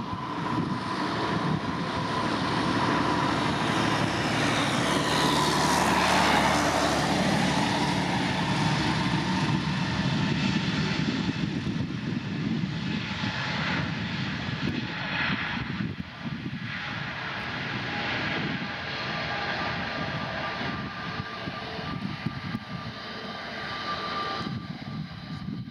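Airplane's engines passing close by, building to a peak about six seconds in, where the pitch drops as it goes past. It then fades slowly into a rumble with a steady whine.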